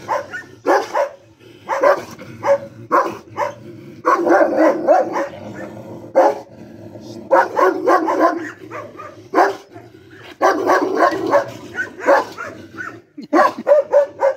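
Kennelled dogs barking in repeated volleys of several barks each, stirred up by a hand waved at their mesh gate.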